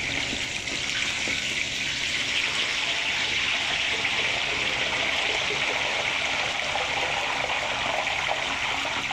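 A whole boiled duck deep-frying in a wok of hot oil: a steady, loud sizzle as the wet skin meets the oil and spatters, growing a little stronger after a couple of seconds.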